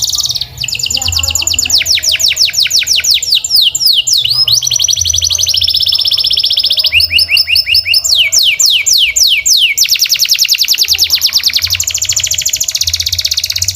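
Domestic canary singing one long unbroken song, moving from phrase to phrase every second or two: runs of quick falling notes, steady high trills and a very fast rolling trill near the end.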